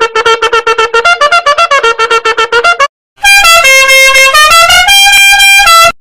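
Meme sound effects: a fast run of short, repeated horn-like notes, about eight a second, then after a brief break a held, brassy honking tone that steps up and down through a few pitches like a short tune before cutting off.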